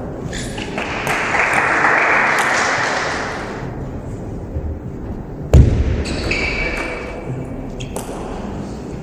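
Table tennis ball ticking off bats and table in a rally, echoing in a large hall, after a few seconds of applause near the start. A single loud thump about five and a half seconds in is the loudest sound.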